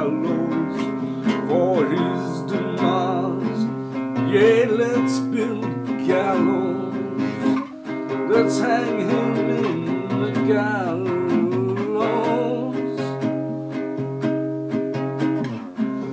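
Acoustic guitar played with a man singing over it, his voice wavering above the held chords, with brief breaks about eight seconds in and near the end.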